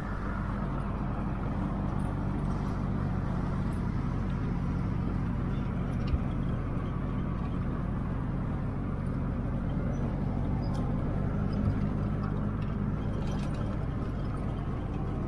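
A jeep's engine runs steadily under way, a constant low hum over road noise, with a couple of light knocks along the way.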